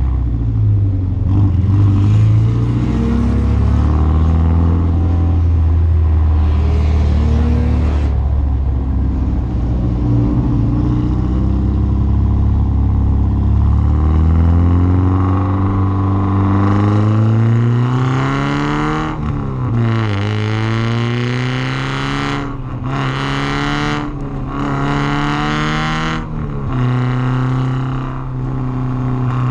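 Porsche 944's four-cylinder engine running steadily at low revs, then climbing in pitch as the car accelerates, with a sudden drop in revs partway through. It continues through several short surges before settling to a steady note near the end.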